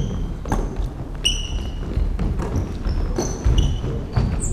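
Basketball shoes squeaking on a hardwood court in several short chirps, mixed with thuds of a dribbled ball and footfalls.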